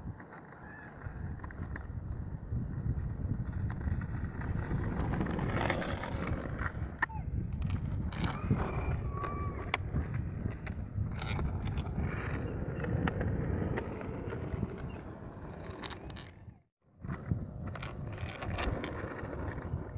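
Skateboard wheels rolling over rough asphalt: a steady rumble with scattered clacks and knocks of the board. The sound cuts out for a moment near the end, then the rolling resumes.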